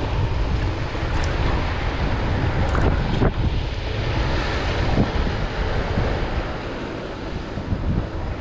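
Wind buffeting the microphone over the steady wash of surf, with a few short sharp sounds about three seconds in and again around five seconds.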